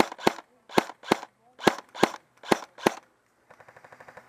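Airsoft gun fired in single shots, about eight in quick succession at roughly three a second, followed near the end by a short run of faint, rapid clicks.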